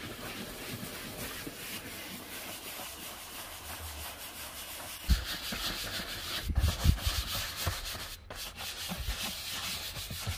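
Horsehair brush scrubbing back and forth on a cream leather car seat wet with leather cleaner: a steady scratchy rubbing that gets louder about halfway through, broken by a couple of brief pauses, with a few dull bumps.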